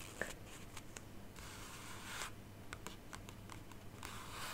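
Faint rustling and a few light taps of small stationery items handled close to the microphone.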